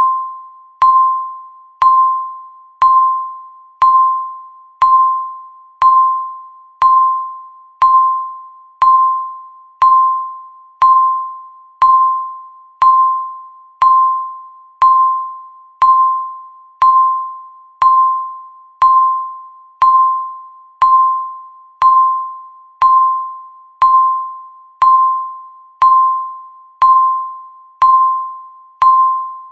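Countdown timer beep: a single clear chime-like tone struck once a second, each stroke dying away before the next.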